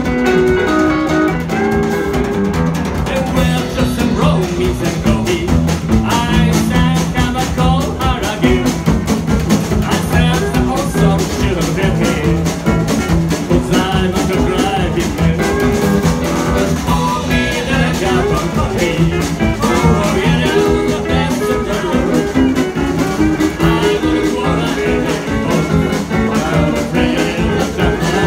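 A live band playing an uptempo song with a steady beat: electric guitar and steel guitar over upright bass and a drum kit.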